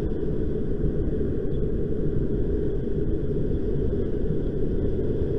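Steady low wind rumble on the microphone of a camera carried on a moving bicycle.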